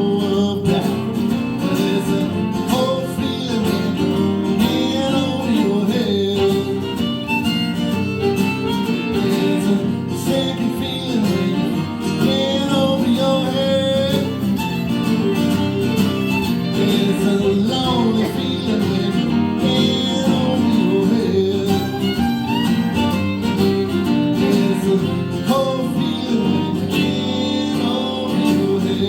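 Live instrumental break in a country/bluegrass-style song: fiddle playing a melodic solo over acoustic guitar accompaniment.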